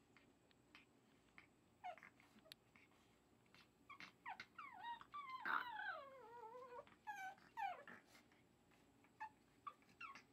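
Pug puppy whimpering and whining in short falling cries while chewing a toy, the longest a drawn-out whine falling in pitch in the middle, with faint taps and clicks between.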